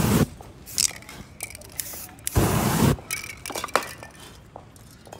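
Short hissing bursts from an aerosol spray-paint can: a brief one at the start and a longer one of about half a second a little past halfway. They are followed by light clinks and taps of metal spray cans on the board.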